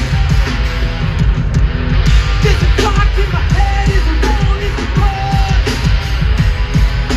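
Hardcore punk band playing live through a large outdoor sound system, heard from within the crowd: drums, guitars and a singing voice.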